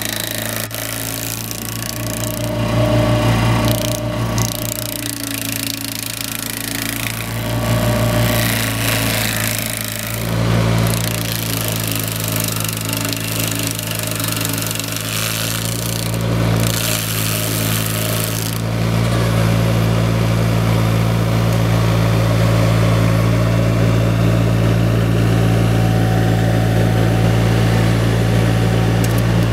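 A hydraulic stump grinder attachment's cutting wheel chewing through wood in uneven spells, over the steady drone of the carrier machine's engine. About two-thirds of the way in, the sound settles into a steady, louder run.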